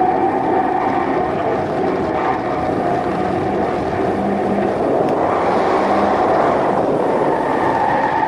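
Turbocharged 1.8-litre four-cylinder Mazda MX-5 engine running hard on track, heard from outside the open car with heavy wind rush on the microphone. About halfway through, the tyres slide and scrub through a corner in a drift.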